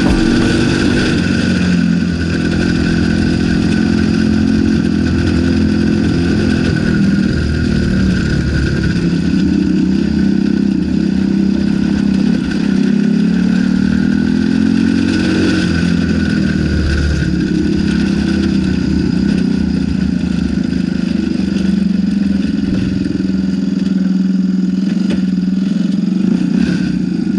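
Homemade go-kart's engine running as the kart is driven, its speed rising and falling again and again as the throttle is worked.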